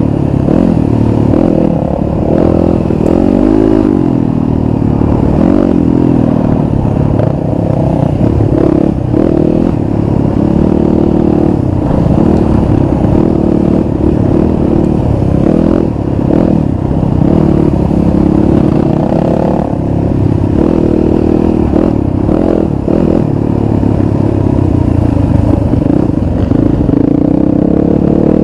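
Dirt bike engine, close to the helmet camera, revving up and down as the bike climbs and weaves along a rocky trail, with rattles and knocks from the rough ground.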